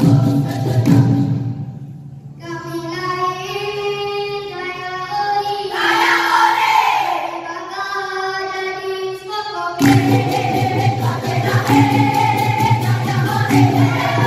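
Dikir barat sung by a children's troupe. The chorus and percussion stop after about a second and a half, a boy soloist sings a slow unaccompanied line with long, wavering held notes into a microphone, and near ten seconds the chorus, percussion and clapping come back in together on a steady beat.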